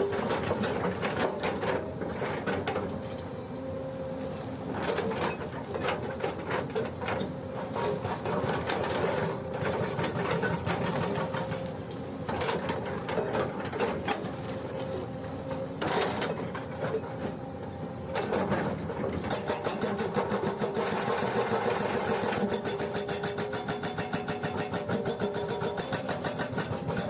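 Excavator-mounted hydraulic breaker hammering in rapid, rattling blows, pausing briefly a few times, over the excavator's diesel engine running.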